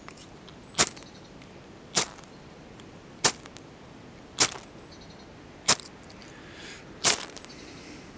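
Ferro rod struck with a scraper six times, about once every second and a quarter, each a short sharp scrape throwing sparks into a pile of dry leaves.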